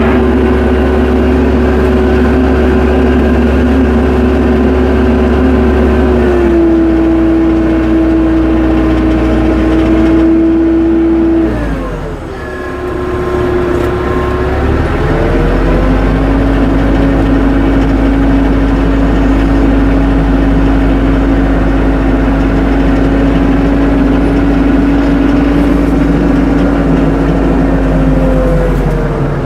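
Tractor engine running steadily under way, its pitch changing with the throttle: it drops a little about six seconds in, dips and goes briefly quieter around twelve seconds, glides back up and settles, then rises again near the end.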